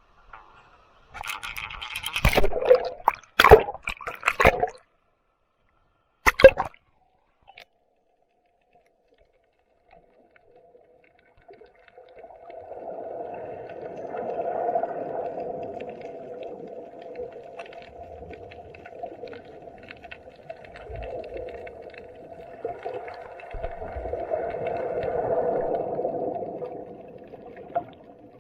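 Action camera in its waterproof case going into the sea: several loud splashes and a knock in the first seconds. About twelve seconds in, muffled underwater gurgling and surging begins, swelling and fading, as heard through the sealed housing.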